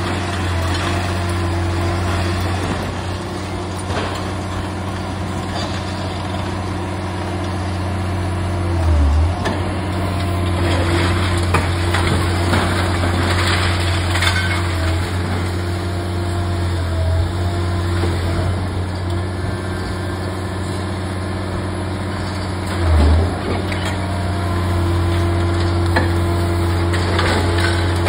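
Liebherr R 980 demolition excavator's diesel engine running with a steady, loud drone, its pitch dipping briefly about nine seconds in and again about twenty-three seconds in. Over it come stretches of crackling and clattering as the hydraulic crusher breaks a concrete wall and broken concrete and brick fall away.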